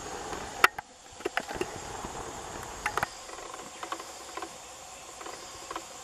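Insects trilling steadily in the background, with a few scattered sharp knocks and clicks, the loudest about half a second in.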